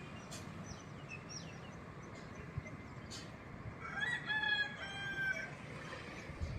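A rooster crowing once, a drawn-out call of about a second and a half, about four seconds in. Small birds chirp briefly in the first second or so.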